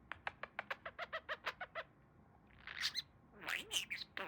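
Pet budgerigar chirping: a quick, even run of short chirps, about eight a second, then louder warbling chatter that bends up and down in pitch.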